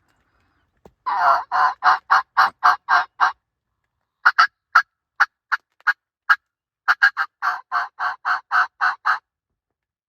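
Turkey call making a run of loud, evenly paced yelps, about three a second, then a handful of sharp single notes, then another longer run of yelps.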